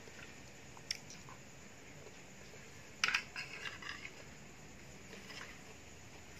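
A metal spoon clinking and scraping on a plastic plate while food is scooped up: a single tap about a second in, then a cluster of sharp clicks and scrapes about three seconds in.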